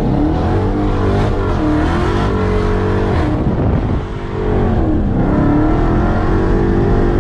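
Dodge Charger Hellcat's supercharged 6.2-litre Hemi V8 accelerating, heard from inside the cabin. The engine note climbs, falls away about three to four seconds in with a brief dip in loudness, then climbs again.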